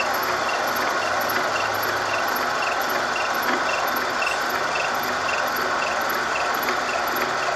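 Horizontal milling machine cutting a gear tooth with its gear cutter: a steady machining noise with a faint tick repeating about twice a second.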